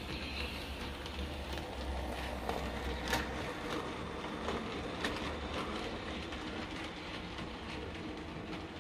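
00 gauge model train running on its track: a steady motor hum and whirr with a few sharp clicks, the clearest about three seconds and five seconds in. The low hum drops off after about three and a half seconds as the train moves away.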